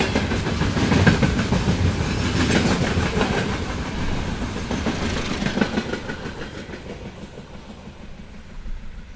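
Freight train wagons rolling past, their wheels clacking over the rail joints. The sound fades steadily over the second half as the train draws away.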